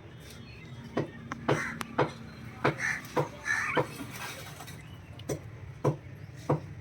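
Knife blade chopping through quail on a wooden cutting block: about eight sharp, irregularly spaced strikes.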